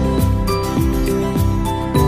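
Light, upbeat corporate-style background music with a steady beat and held melodic notes.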